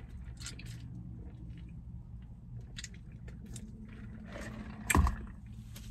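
Close-up chewing of a crispy fried chicken sandwich, with scattered small crunches and mouth clicks over a steady low hum. A loud thump comes about five seconds in.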